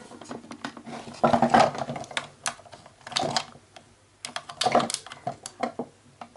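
Hard plastic toy parts clicking and clattering in irregular bursts as they are handled and pushed together.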